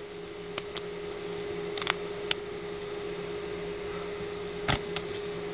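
A few short sharp clicks as thin printed plastic layers are flexed and peeled apart by hand, over a steady background hum.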